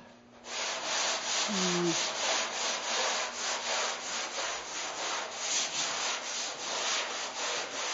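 Long flexible sanding board with sandpaper being pushed back and forth by hand over body filler on a car hood, in steady, evenly repeating strokes that start about half a second in. This is block sanding, done to level the filler and show up its high and low spots.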